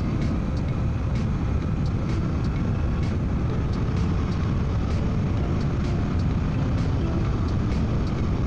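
Suzuki V-Strom 800DE's parallel-twin engine running steadily under way, mixed with wind and road noise heard through a microphone inside the rider's helmet.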